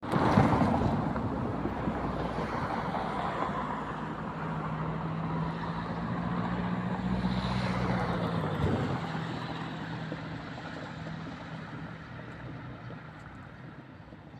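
A road vehicle driving past, its engine hum and tyre noise loudest in the first half and fading away over the last several seconds.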